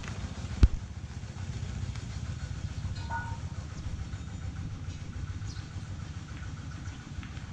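Single-cylinder Jiang Dong diesel engine idling steadily with an even low rumble. A single sharp knock comes about half a second in.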